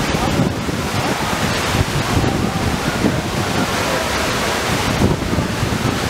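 An 18–20 m waterfall pouring into its plunge pool: a loud, steady rush of falling water, with wind buffeting the microphone.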